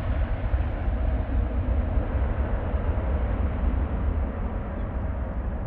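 Jet airliner's engines on departure, a deep steady rumble that slowly fades as the aircraft moves away.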